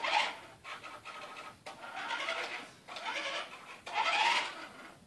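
Toy remote-control monster truck's small electric motor whirring in several short spurts, starting and stopping as it is driven.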